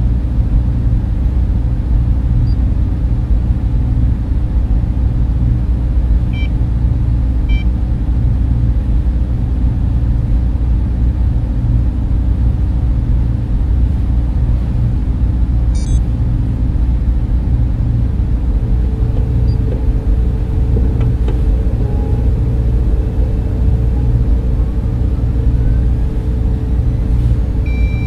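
Sci-fi spaceship interior ambience: a steady, deep machine rumble like fans and motors running, with faint electronic beeps now and then and a faint higher hum joining past the middle.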